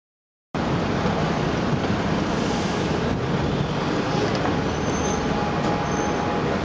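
Steady outdoor city background noise, mostly a low rumble of traffic with wind on the microphone, starting abruptly about half a second in.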